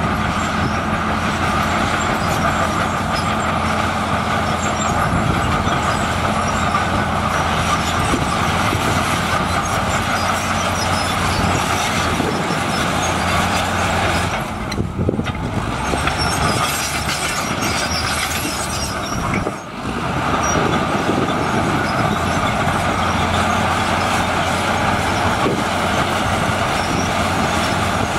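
Komatsu D65PX crawler bulldozer's diesel engine running steadily under load as it pushes a pile of dirt forward on its tracks. The sound dips briefly twice, about halfway through and a few seconds later.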